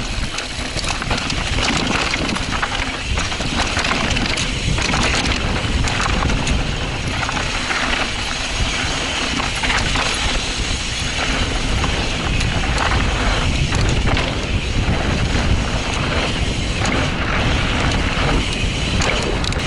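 Mountain bike descending a dirt trail: tyres rolling over loose dirt and rocks, with the bike's chain and parts rattling over bumps and wind rushing past.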